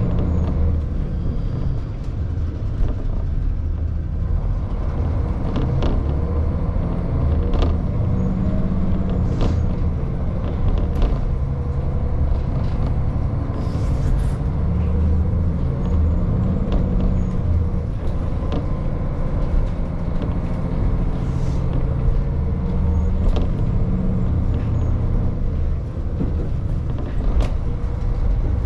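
KiHa 40 diesel railcar running along the line: a steady low drone of its diesel engine and running gear, with scattered sharp clicks.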